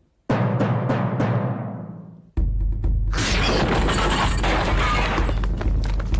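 Cartoon sound effect of a heavy wooden door being punched in: a sudden crash with a few sharp cracks that dies away. A little past two seconds in comes a second, longer crash with a low rumble as the door falls, over music with timpani.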